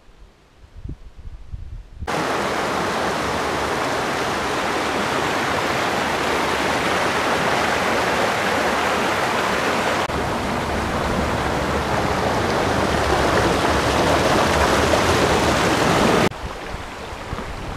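Stream rushing over rocks in small rapids: a steady, loud rush that starts abruptly about two seconds in and cuts off abruptly near the end. A few faint low rumbles come before it.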